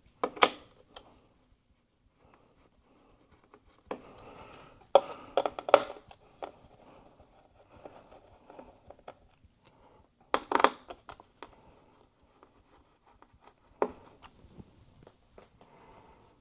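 Scattered sharp clicks and taps of a Torx screwdriver and small screws while the T10 screws holding an iMac's cooling fan are undone and set down. The loudest clusters come about five seconds in and about ten seconds in.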